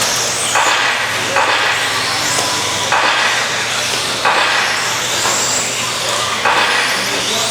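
Several 1/10 electric stadium trucks with 13.5-turn brushless motors racing round a dirt track. High motor whines rise and fall as the trucks throttle up and brake, over a continual rush of tyre and chassis noise.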